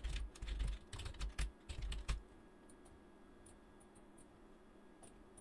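Typing on a computer keyboard: a quick run of keystrokes for about two seconds, then only a few faint taps.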